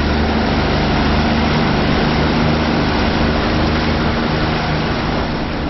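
Outboard motor running steadily at cruising speed as the boat travels, a low even engine hum under a continuous rush of wind and water.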